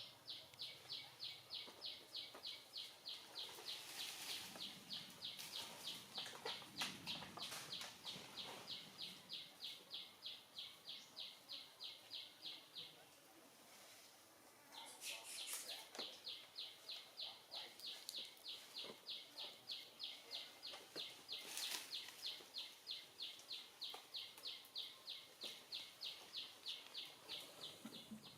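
A high-pitched pulsing call from a wild animal, repeating about three times a second in a long, even run. It breaks off about 13 seconds in and starts again two seconds later. Scattered clicks and rustles sound over it.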